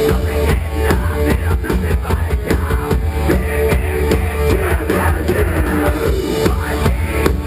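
Rock band playing live: a pounding drum kit and guitars, loud and continuous. It is a poor-quality audience recording with a boomy, muddy low end.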